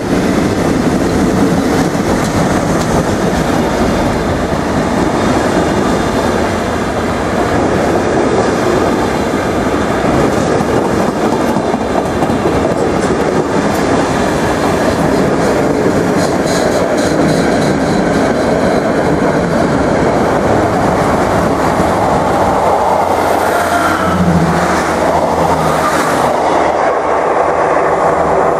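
Freight train wagons, flat wagons carrying rails and yellow ballast hoppers, running past close by: a loud, steady rumble with repeated clatter of wheels over the rail joints. A brief squeal rings out about three-quarters of the way through.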